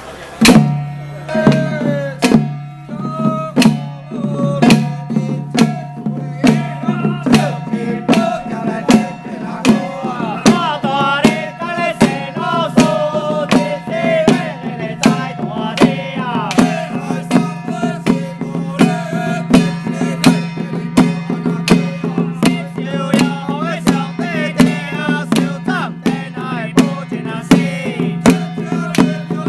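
Temple ritual percussion ensemble: hand drums and cymbals striking hard at a steady beat of about two a second, over a wavering melody and a steady low drone.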